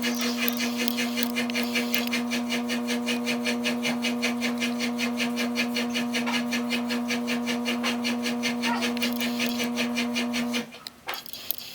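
A machine running with a steady electric hum and a fast, even ticking of about four or five strokes a second; both stop abruptly near the end.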